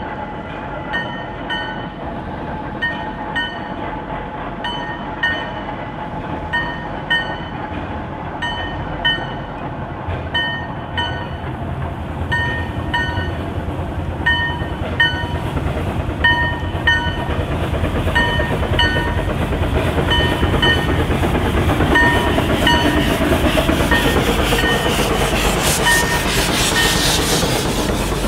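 Narrow-gauge steam train running, its wheels clicking over rail joints in regular pairs with short ringing tones. A rushing hiss builds over the last third, and the train grows louder toward the end.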